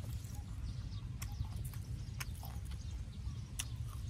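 Sharp, irregular clicks and snaps of crisp fresh vegetables being broken off and bitten into, over a steady low rumble of wind on the microphone.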